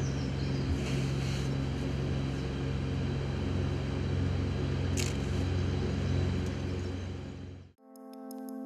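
A steady low mechanical hum, like a distant engine or pump, runs over outdoor background noise, with one short sharp sound about five seconds in. Near the end it cuts off abruptly and music with sustained keyboard-like tones begins.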